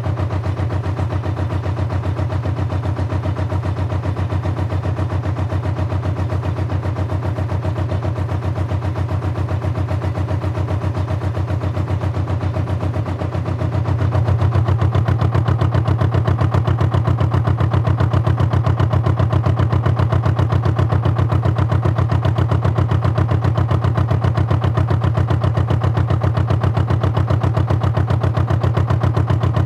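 Canal narrowboat's diesel engine running on board with a fast, even beat. About fourteen seconds in it picks up and runs louder as the boat speeds up, then holds steady.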